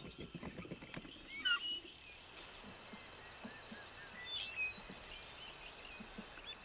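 Quiet forest ambience with a few short, high bird chirps, the loudest about a second and a half in and another small cluster about four and a half seconds in.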